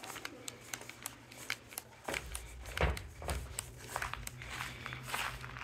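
Footsteps crunching on loose gravel, a run of irregular crunches that comes at about two steps a second from about two seconds in.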